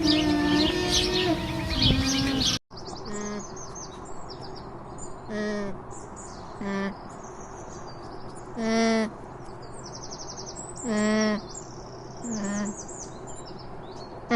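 Alpaca humming: a series of short hums, each about half a second, a second or two apart. Birds chirp in the background, and the first couple of seconds are louder before a sudden cut.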